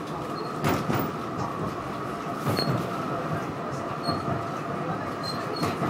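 Tram running along street track, heard from on board: a steady rumble of wheels on rails under a steady high-pitched whine, with a few sharp knocks spread through it.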